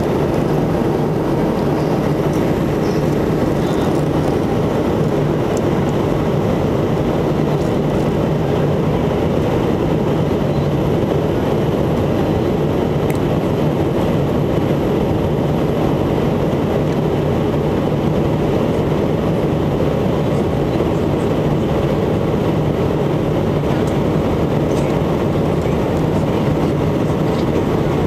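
Cabin noise of a McDonnell Douglas MD-88 airliner in flight: the steady rumble of its two rear-mounted Pratt & Whitney JT8D turbofan engines and the airflow, with a low steady hum underneath.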